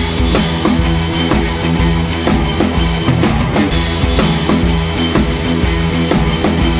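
Background music with a steady drum-kit beat and sustained bass and instrument tones.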